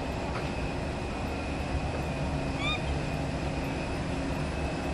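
Steady low rumble and hum of aircraft and airport ground equipment, heard from inside an enclosed jet bridge, with a faint steady high whine. A short rising chirp about two and a half seconds in.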